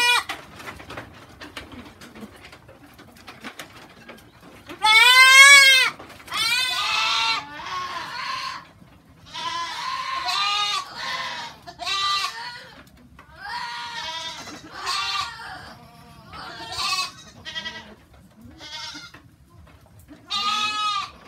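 Goats bleating again and again, a dozen or so wavering calls of differing pitch, the loudest about five seconds in.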